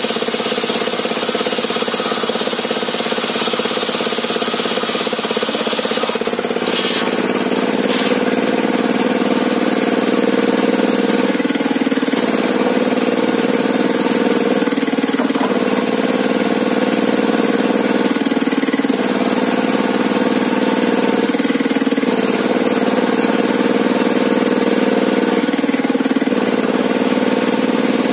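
Engine driving a homemade sawmill table saw, running steadily at a loud level, its pitch stepping down and back up every two to three seconds.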